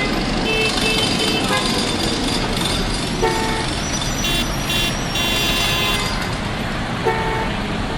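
Busy street traffic with car horns honking: short horn toots about three seconds in and again near the end, with higher-pitched horn tones in between.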